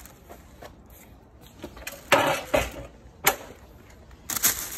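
Bicycle being parked and handled by hand: a couple of loud knocks about two seconds in, a single sharp click a second later, then a rustle near the end.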